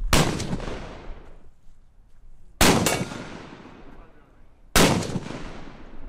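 Semi-automatic AR-style rifle firing: one shot at the start, a quick pair about two and a half seconds in, and one more near five seconds. Each report trails away over about a second.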